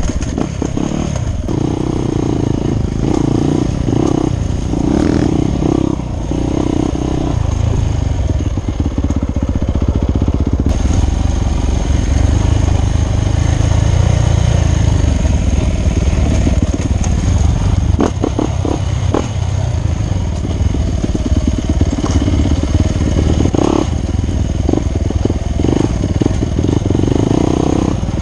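Dirt bike engine running under changing throttle as it is ridden over a rough dirt trail, with a few sharp knocks and rattles from the bike over bumps.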